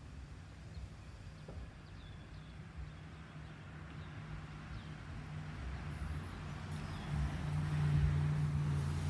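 A low, steady engine hum that grows louder near the end, with short high bird chirps about once a second.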